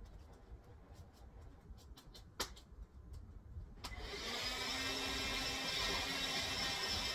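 A few light clicks and one sharp click, then about four seconds in a vacuum cleaner switches on and runs steadily.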